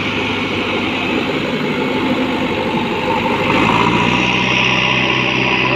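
JCB 3DX backhoe loader's diesel engine running under load as the front loader bucket pushes a pile of loose soil. The engine gets louder and its note rises a little about three and a half seconds in.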